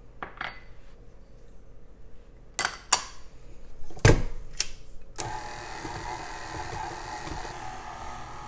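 A few sharp clacks, the loudest as the tilt-head of a KitchenAid stand mixer is lowered and locked, then about five seconds in the mixer motor starts and runs steadily, its flat beater creaming butter and sugars in a glass bowl.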